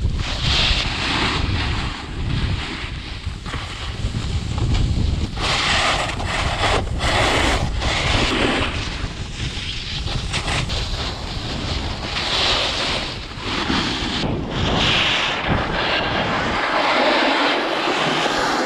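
Wind buffeting the action camera's microphone while a snowboard rides down a packed piste, its edge scraping the snow in surges with each turn. The wind rumble drops away near the end as the board slows.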